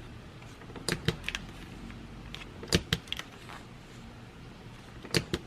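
Kokuyo Harinacs stapleless stapler pressing through thick paper: three clusters of short sharp clicks, about a second in, near the middle and near the end.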